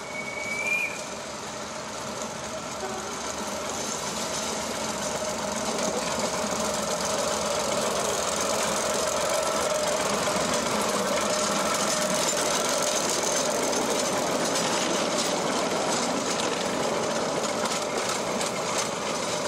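Diesel locomotive engine running, growing louder over the first several seconds and then holding steady.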